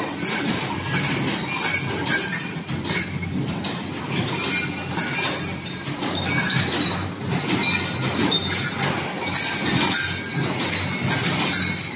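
Bobbin cleaning and cutting machine running: a steady mechanical din with constant clattering and clinking and a thin, steady high whine.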